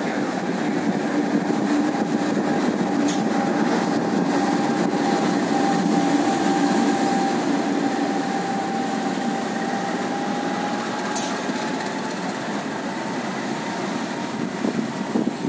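CC206 (GE CM20EMP) diesel-electric locomotive running on a shunting move, a steady engine and rolling noise with a thin held whine that dips slightly in pitch partway through.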